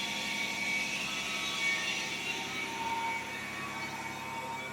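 Truck-mounted boom saw's engine and hydraulics running steadily as the boom retracts under remote control.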